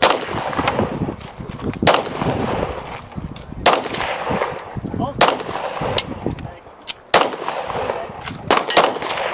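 Glock pistol fired in single shots, one every one and a half to two seconds, then three shots in quicker succession near the end, each shot trailed by a short echo.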